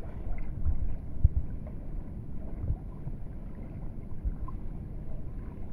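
Wind buffeting the microphone in uneven low rumbles and thumps, over sea water washing around a small boat.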